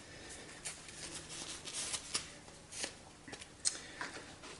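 Light handling noise: scattered rustles and a handful of sharp little clicks and ticks, the loudest about two thirds of the way through.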